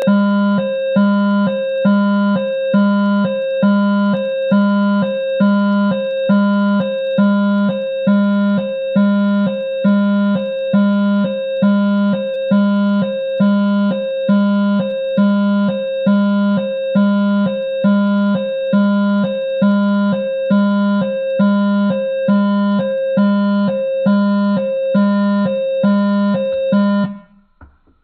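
Midland WR-120EZ weather alert radio sounding its alert siren in test mode: a loud electronic beep repeating about once a second, which cuts off abruptly near the end.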